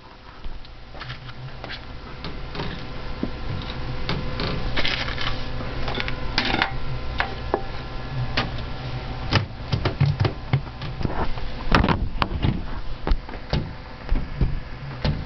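Irregular clicks, knocks and rattles of a computer case side panel being handled and worked open, over the steady hum of the running PC.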